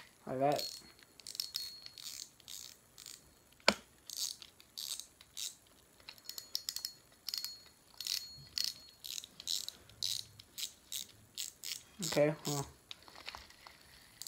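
YONGZ spinning fishing reel being handled and worked: a run of light, irregular clicks and ticks from its mechanism, with one sharper click about four seconds in.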